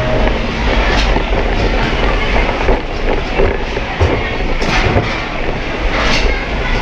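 Vekoma mine train roller coaster rolling along its steel tube track, the wheels giving a steady rumble with a few sharp clacks at irregular intervals.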